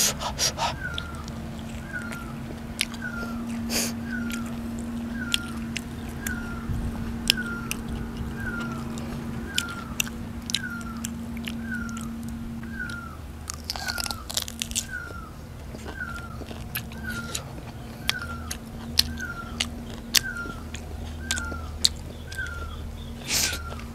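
Close-up chewing and crunching of food, with irregular sharp biting clicks as meat and salad are eaten. Behind it a small high chirp repeats evenly about every two-thirds of a second, over a low steady hum.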